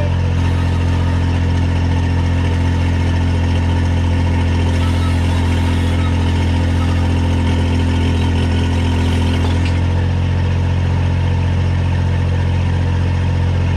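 Mini excavator's diesel engine running steadily while the hydraulic drive motor turns the track to pull a new rubber track onto the sprocket. About ten seconds in, part of the higher sound drops away.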